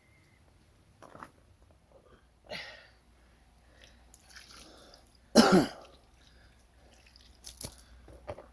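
A single loud cough about five seconds in, among a few quieter brief knocks and rustles.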